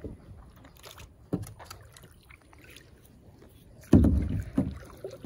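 Small knocks and clunks on a plastic kayak hull, with a louder, deep thump about four seconds in and a smaller one just after.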